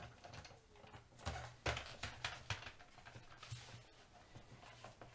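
Faint scattered clicks and scrapes of a Phillips screwdriver turning a screw out of a set-top box's plastic case, the loudest knocks about a second and a half in.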